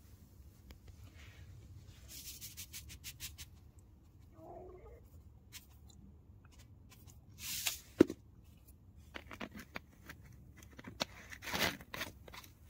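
Sulphamic acid crystals being tipped from a plastic bottle into a glass beaker of gold solution. There is a quick run of light ticks, short rustling scrapes, and one sharp click about eight seconds in.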